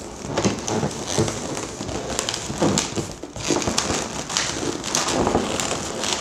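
Inflated latex balloons, a black 350 twisting balloon and lilac 12-inch link balloons, rubbing and pressing against each other as the long balloon is pushed through the cluster, making an uneven crackling rustle with many small clicks.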